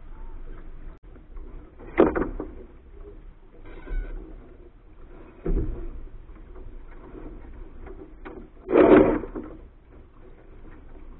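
Wind and water noise on a sailboat under way, a steady rush broken by a few louder surges, the biggest near the end.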